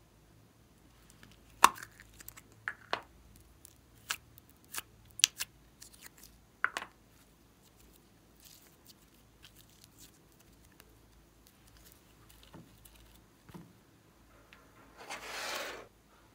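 Plastic slime container being opened and handled: a run of sharp clicks and snaps in the first half. Then glossy slime is pulled out and squished, with a noisy squelch about a second long near the end.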